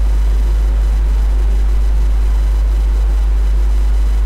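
Steady low electrical hum with a faint hiss over it, unchanging throughout, with no other distinct sound.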